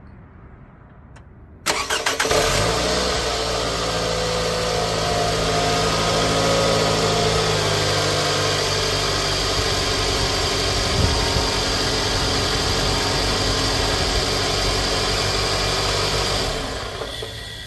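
2008 Scion xB's 2.4-litre four-cylinder engine (Toyota 2AZ-FE, VVT-i) starting about two seconds in, revving up briefly, then idling steadily. It is a 352,000-mile engine still on its old oil, overdue for a change. The sound fades near the end.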